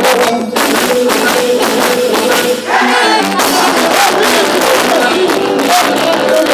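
Band music with a busy, steady percussion beat under sustained instrumental tones, and a singing voice briefly about three seconds in.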